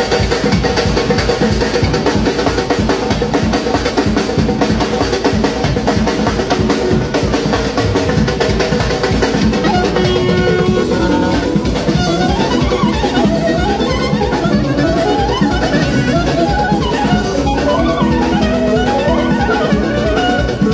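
Azerbaijani wedding band music: nağara hand drums and a drum kit beating a fast, steady rhythm. About halfway through, a clarinet comes to the front with quick, ornamented runs up and down over the drums.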